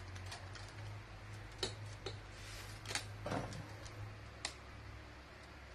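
Plastic rim ring of a Gaabor electric stand fan being fitted around its wire grilles: about half a dozen light, irregular clicks and taps of plastic on wire, over a low steady hum.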